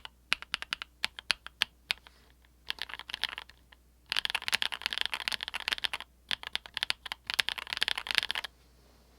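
Custom mechanical keyboard with lubed Everglide Peacock Blue linear switches in a polycarbonate plate with PE foam mod, being typed on: a few separate keystrokes, then short runs, then two fast runs of typing that stop about a second before the end.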